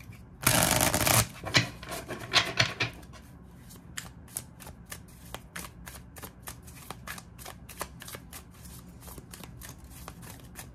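A deck of tarot cards shuffled by hand: a loud rush of cards lasting under a second near the start, then a long run of quick, irregular card flicks and slides.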